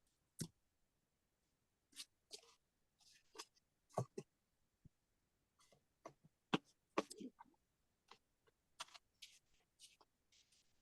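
Faint, scattered small clicks, taps and brief rustles of paper and cardstock being handled and laid down, irregular and a few a second at most.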